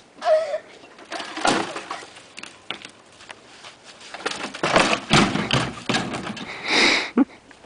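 Portable basketball hoop tipping over and crashing down, a burst of clattering noise about five seconds in among several shorter noisy bursts.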